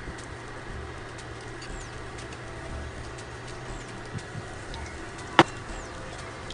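Steady hiss of corndogs frying in a shallow pan of oil, with a sharp metallic click about five seconds in as tongs knock against the pan. A bird's faint falling chirp repeats about every two seconds.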